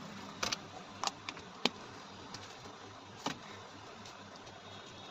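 A few short, sharp clicks and taps, about five in the first three and a half seconds, as repair tools work at the glued glass back panel of a smartphone, over a steady low background hum.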